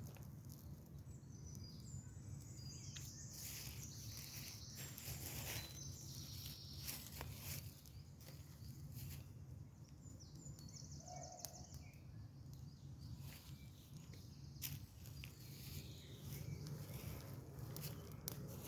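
Wood fire crackling with irregular sharp pops over a steady low rumble, while songbirds sing high chirps and trills, most busily in the first several seconds and again around the middle and near the end.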